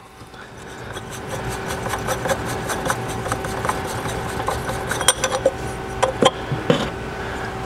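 Billet aluminium oil catch can cup being unscrewed by hand from its threaded top: a continuous scraping rub of the threads and O-ring with many small rapid clicks.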